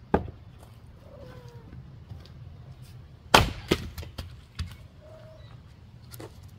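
Two splitting blows into a wet, stringy firewood round. A sharp strike comes just after the start, then a louder strike about three and a half seconds in, followed by a few smaller knocks.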